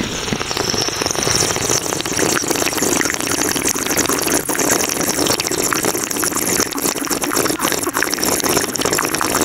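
Electric coffee maker running: a loud, steady hiss and whir with fine crackling all through.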